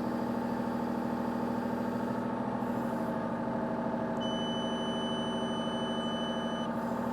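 Excavator diesel engine running steadily at a set speed, about 1600 rpm. About four seconds in, a single high electronic beep from the onboard scale sounds for about two and a half seconds: the scale taking its calibration reading while the boom is held back, which the operator must hold until the beeping stops.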